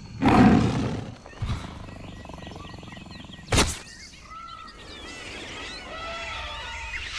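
Jungle sound effects: a loud big-cat roar right at the start, a thump, then a sharp crack about three and a half seconds in, followed by a chorus of chirping and whistling tropical birds.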